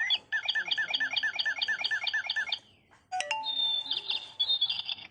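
Electronic bird chirps from a battery-operated toy bird cage: a quick run of about a dozen identical chirps, then, after a short break, a different warbling trill.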